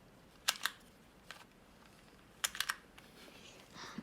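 Sharp plastic clicks of a 2x2 Rubik's cube being turned by hand. There are two clicks about half a second in, a single click a little later, and a quick cluster of three or four near the middle.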